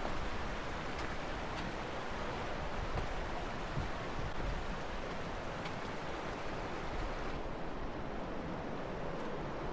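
Steady rush of flowing river water, a continuous even noise with no pauses.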